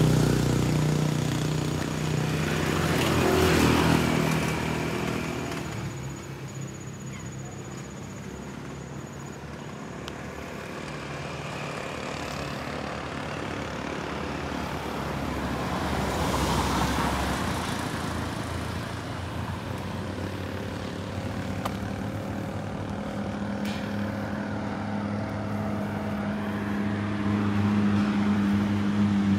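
Motor vehicles passing on a street: engine noise swells as a vehicle goes by about four seconds in and again around the middle, and a steady engine hum grows louder near the end.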